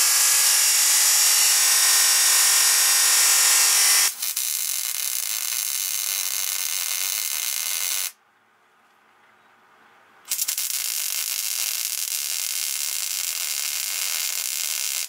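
Abrasive chop saw cutting steel stock with a loud steady whine for about four seconds. Then a MIG welder sizzles in two runs, with a pause of about two seconds between them.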